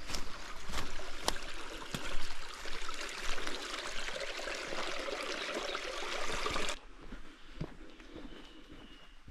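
A stream's water running in an even rush that stops abruptly about two-thirds of the way through, leaving a much quieter background.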